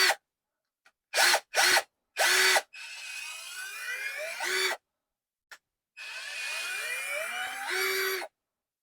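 Cordless drill motor run in trigger pulls: three short blips, then two longer runs of about two seconds each, its pitch rising as the variable-speed trigger is squeezed harder.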